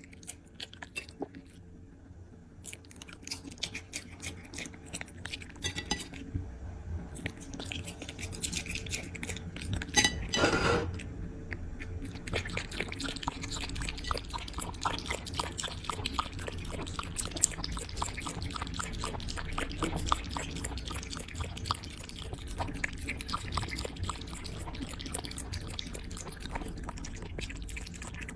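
A puppy eating from its dish: fast, wet chewing and smacking clicks that grow busier after the first few seconds, with a brief louder sound about ten seconds in.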